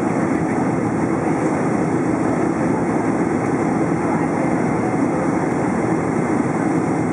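Steady cabin noise of a Boeing 747-400 in flight, heard inside the cabin: an even, deep rushing drone of engines and airflow that holds constant throughout.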